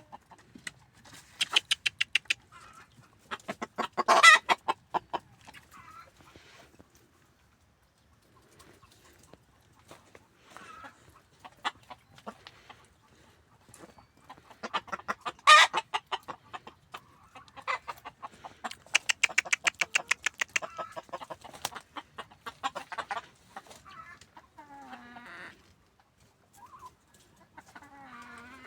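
Native free-range chickens clucking in several bursts of rapid short notes, with a few single calls near the end.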